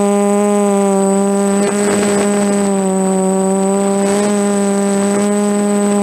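DJI F330 quadcopter's brushless motors and propellers running with a steady pitched hum, the pitch wavering slightly, with a brief noisy rush about two seconds in.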